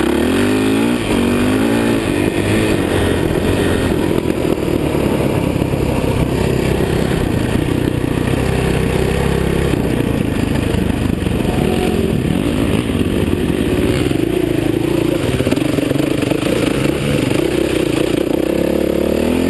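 Dirt bike engine running while it is ridden along a dirt trail, its pitch rising and falling with the throttle, with a rising rev in the first second.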